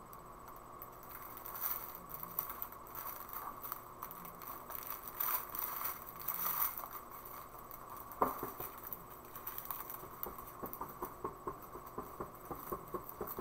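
Small plastic bags of diamond-painting drills being handled, with light rustling, ticks and scrapes and one sharper tap about eight seconds in.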